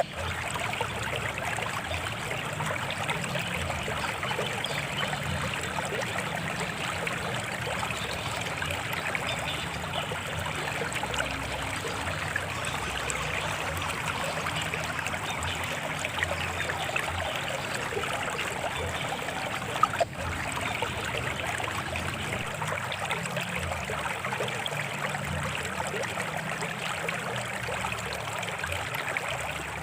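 Natural stream of water flowing and trickling steadily, with one brief click about twenty seconds in.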